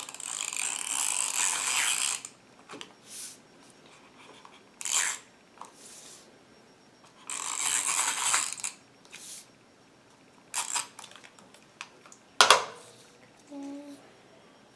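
Tape-glue runner drawn across cardstock in several noisy, scratchy strokes, two lasting about two seconds and shorter ones between them. A sharp click near the end is the loudest sound.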